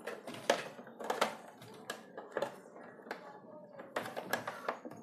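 Irregular clicks, taps and knocks of hard plastic parts being handled and fitted inside an opened RO water purifier's housing, about a dozen of varying loudness.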